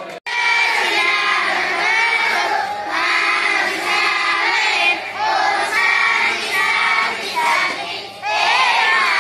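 A large group of boys' voices singing a prayer together in unison, in phrases with rising and falling pitch: a grace sung before a meal. The singing starts abruptly just after a very brief gap at the start.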